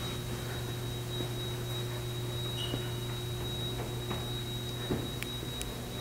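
Steady electrical mains hum from a powered building, with a thin high-pitched whine held over it and a few faint scattered ticks and taps.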